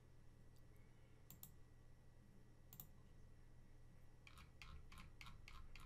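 Faint clicking from a computer mouse: a few single clicks spaced out, then a quick, even run of clicks, about four a second, over the last second and a half.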